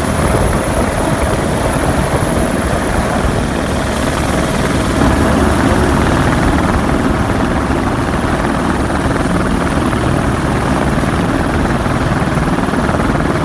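Police helicopter's rotor and engine running steadily, a loud, unbroken noise.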